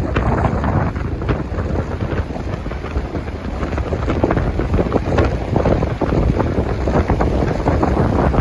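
Wind blowing hard across the microphone, a loud low noise that rises and falls in gusts.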